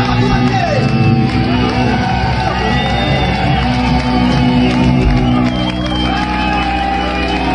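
Live punk rock recording playing: band with guitar, bass and a singer's voice, dense and steady with held chords.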